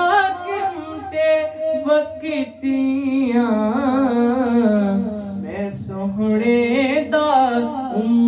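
A young man singing a Punjabi naat solo into a microphone, with no instruments. He holds long, ornamented notes whose pitch wavers and slides, and a brief hissing consonant comes about six seconds in.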